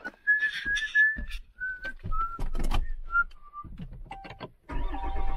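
A person whistles a string of short, steady notes, each a little lower than the one before, among scattered clicks and knocks. Near the end, a Ram 3500 pickup's Cummins diesel engine starts up from the push-button ignition, with a low rumble.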